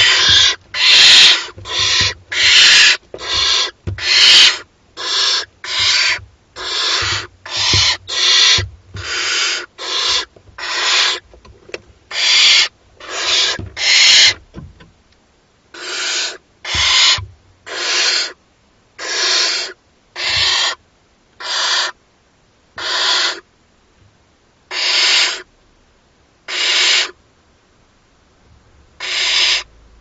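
Barn owl chicks giving their rasping, hissing begging calls (the 'snoring' food call), over and over. The calls come in quick succession for the first half, then slow to about one every second or so.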